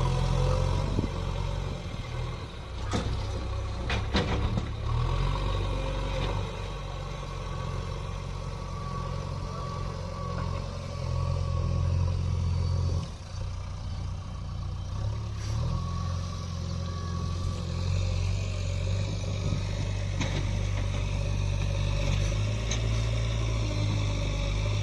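Heavy diesel engine running steadily, with a few sharp knocks about three and four seconds in. The engine sound drops briefly about halfway through, then picks up again.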